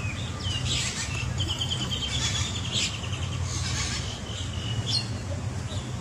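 Birds chirping, with several short high calls and a quick trill, over a steady low hum.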